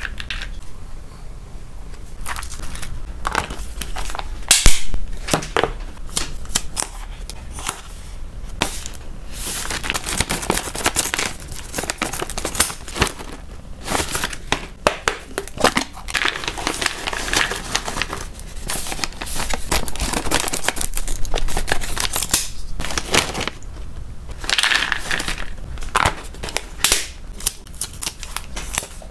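Plastic cat-snack packaging being handled, crinkling and crackling, with dense irregular clicks and rustles that thicken in busier stretches.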